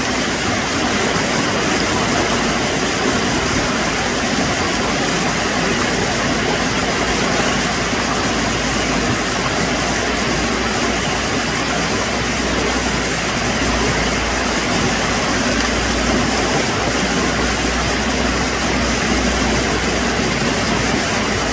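Water pouring down a dam spillway and churning over rocks: a steady, unbroken rush.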